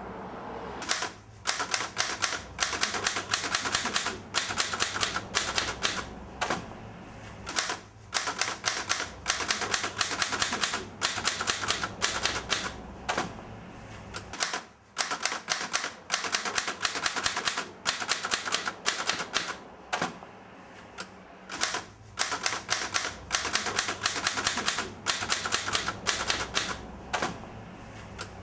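Typewriter being typed on: fast runs of keystrokes, each run lasting a second or two, with short pauses between them.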